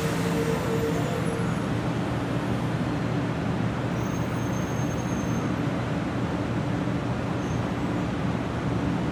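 Hello Kitty-liveried 500 Series shinkansen rolling slowly along the platform as it comes to a stop: a steady low hum and rumble, with a higher whine that fades out about a second and a half in.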